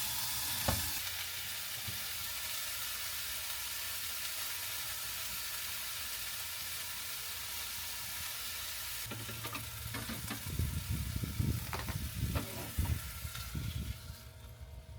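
Fillet steak sizzling steadily in a frying pan, with a few knocks and clatters of pan and utensils about two-thirds of the way through, and the sizzle dying down near the end.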